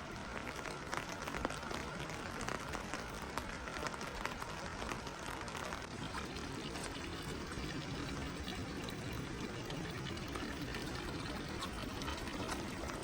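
Running water: a steady rushing hiss with many small splashes and drips throughout.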